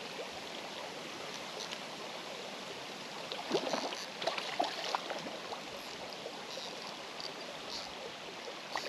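Steady wash of flowing river water, with a cluster of short splashy knocks about halfway through.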